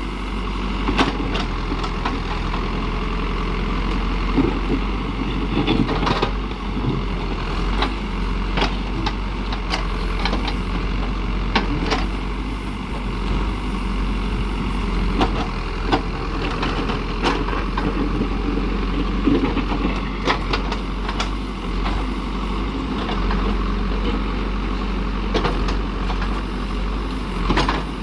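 Heavy diesel construction machine running steadily, with irregular sharp knocks and clanks every second or few.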